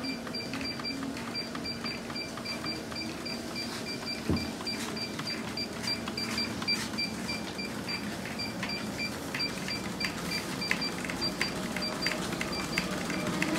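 Motorized treadmill running at full speed: a steady motor hum with a repeating high-pitched pulsing tone, and no bearing noise now that the motor's bearing has been replaced. In the second half, barefoot steps knock on the moving belt.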